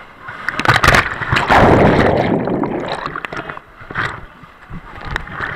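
Whitewater crashing and churning right at the raft's side as the inflatable raft plunges over a drop in a rapid. Sharp splashes just under a second in are followed by a loud rushing wash that lasts a couple of seconds and then fades, with smaller splashes later.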